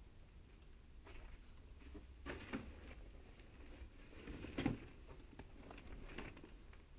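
Faint, slow footsteps over a debris-strewn floor: about four steps a second or more apart, the loudest a little past the middle.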